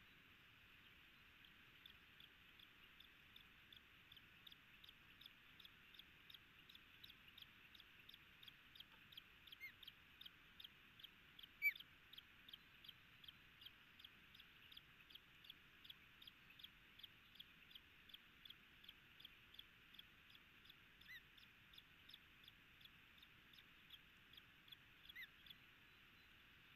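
Osprey calling faintly: a long, even series of short, falling chirps, about two a second, with one louder chirp midway.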